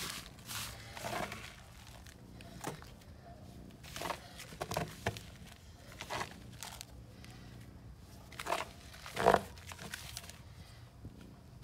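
A plastic tub scooping and scraping dry dairy meal off a crinkly foil-lined plastic sheet: rustling and crinkling of the sheet with the scrape and pour of the meal, in irregular bursts, the loudest two close together about three-quarters of the way through.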